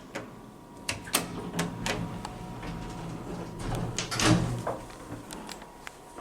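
Lift doors operating, with a series of clicks and knocks from the door gear and a louder clunk about four seconds in.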